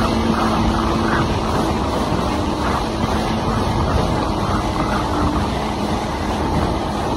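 Jet ski running steadily at speed, with an even engine drone under the rush of water and wind.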